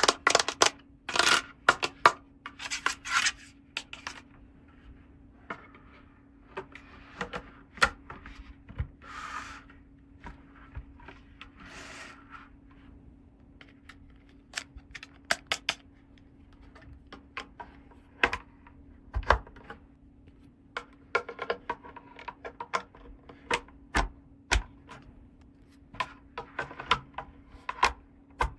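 Small plastic toy pieces being handled, with irregular clicks, taps and light knocks as parts are set down and fitted together, and a few short rustles of packaging. A faint steady hum runs underneath.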